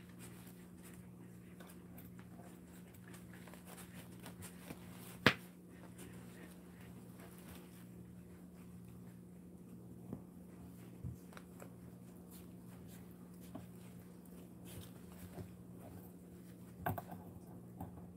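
Faint room tone with a steady low hum, and scattered small scratches and taps as a young dachshund puppy shifts about on its fabric dog bed. One sharp click about five seconds in, and a few more clicks near the end.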